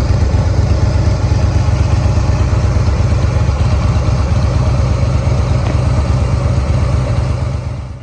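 Harley-Davidson Fat Boy's air-cooled V-twin idling steadily through Screaming Eagle performance pipes that carry a catalytic converter, then dying away just before the end.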